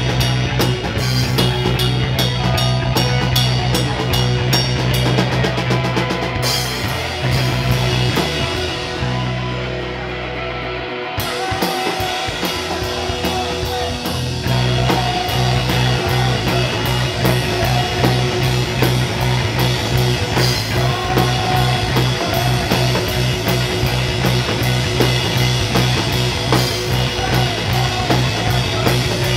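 Instrumental rock jam played live by a trio: electric guitar, electric bass and a Mapex drum kit. The cymbals drop out for a few seconds about a quarter of the way in, leaving guitar and bass, then the full band comes back in.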